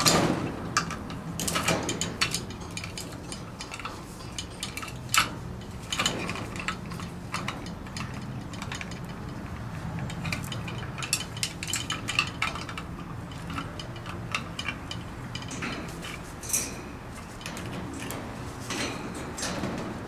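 Blue-and-gold macaw working its beak at a hanging plastic foraging toy, rattling it on its chain: irregular clicks, knocks and clinks, the sharpest right at the start.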